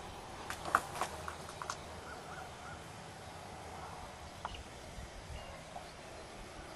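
Quiet outdoor ambience with a cluster of sharp clicks and taps in the first two seconds, then a bird chirping three times in quick succession, and one more faint click later on.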